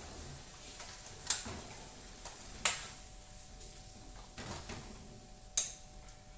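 Kitchen utensils and containers being handled, giving scattered sharp clicks and knocks, three of them louder, over a faint steady hum.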